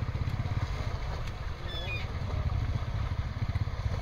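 A small boat engine running steadily, a fast low rumble, with faint shouts of people wading in the water.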